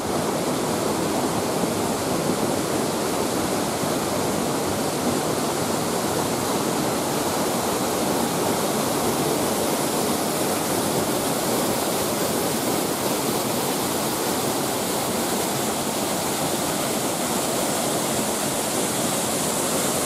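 Steady rush of a waterfall pouring onto rock and into its plunge pool. It is a fall with a large flow of water.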